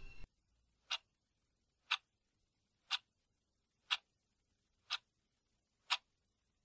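Quiz countdown-timer sound effect: a clock ticking once a second, six faint ticks.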